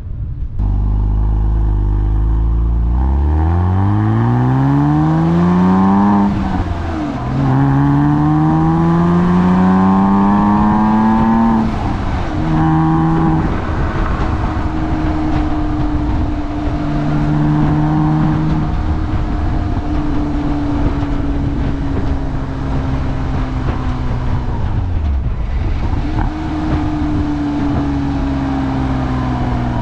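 2007 Porsche Cayman's 2.7-litre flat-six engine accelerating hard. Its pitch rises steeply twice, with a drop at each manual upshift, about six and twelve seconds in. It then runs at a steady, slowly falling pitch while cruising.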